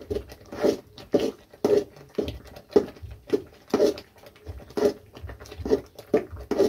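A long metal spatula stirring thick semolina upma in a metal kadai, scraping and squelching against the pan in even strokes about twice a second.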